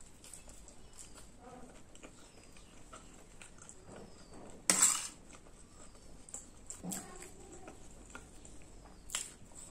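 Close-miked eating sounds: chewing and mouth noises of someone eating chole bhature, with a steel spoon clinking and scraping against a steel plate, loudest once about halfway through and with lighter clicks near the end.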